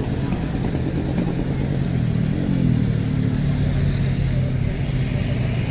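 A motor vehicle engine running steadily, its drone briefly rising and falling in pitch about two seconds in.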